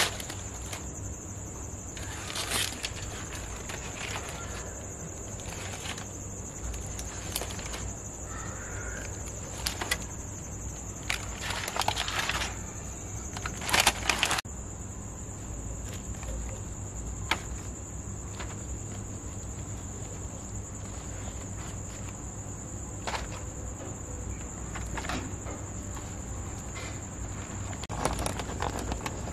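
Outdoor ambience: a steady high-pitched drone with a low rumble underneath, broken by scattered short rustles and knocks, the loudest about 12 and 14 seconds in.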